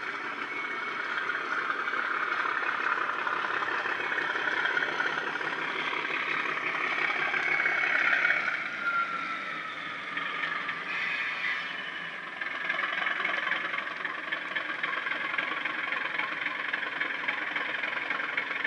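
Class 37 diesel engine sound from a Loksound 4 DCC sound decoder, played through a small EM1 speaker in the fuel tanks of a Bachmann OO-gauge model. The engine runs steadily and sounds thin, without deep bass, with a whine that falls in pitch about halfway through.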